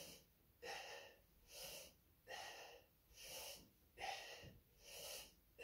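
A man breathing hard and rhythmically through squat reps with a 40-pound kettlebell, about one breath a second, an even, airy in-and-out.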